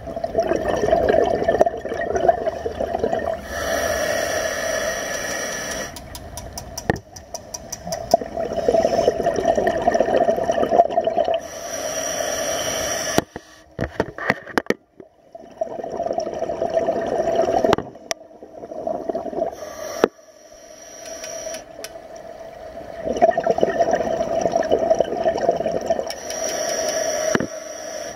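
Scuba regulator breathing underwater: bursts of exhaled bubbles burbling for a few seconds at a time, alternating with the hiss of inhalation through the regulator, repeating every few seconds.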